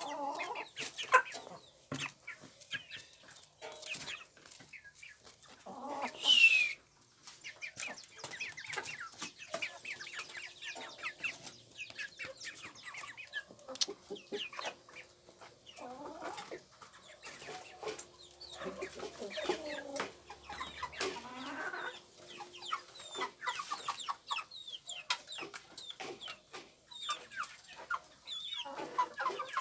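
Chickens calling on and off, with one loud call about six seconds in that falls in pitch, over many short clicks.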